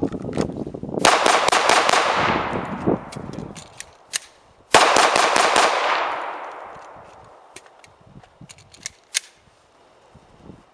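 Semi-automatic pistol fired in two rapid strings of several shots each, about a second in and again just before the middle, each string echoing and dying away over a couple of seconds. Fainter single cracks are scattered between and after the strings.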